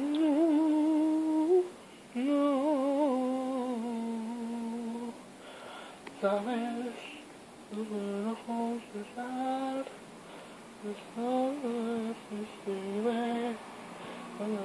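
A young woman's solo voice singing a slow melody with no accompaniment. The notes are held with a light vibrato, in phrases of one to three seconds with short breaks between.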